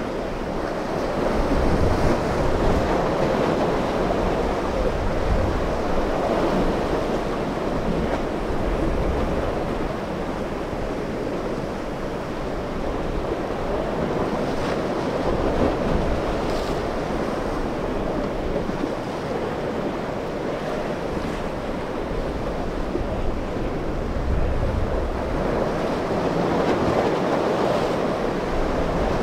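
Ocean surf breaking on an inlet bar, with wind blowing across the microphone: a steady rushing noise that swells and eases.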